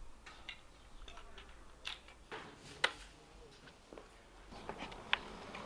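Scattered light clicks and taps of hard plastic parts of a Kärcher pressure-washer chassis cleaner being handled and snapped together. The sharpest click comes about three seconds in and another about five seconds in.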